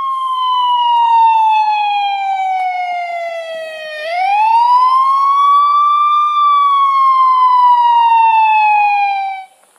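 Electronic wailing siren, its pitch sliding slowly down, sweeping back up about four seconds in, then sliding down again before it cuts off near the end.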